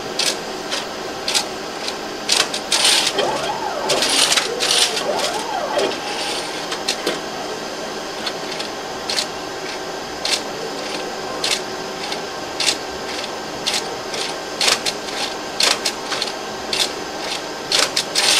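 Plasmon D Series optical disc library's robotic handler running, a steady motor hum with irregular sharp clicks and clacks as the mechanism moves.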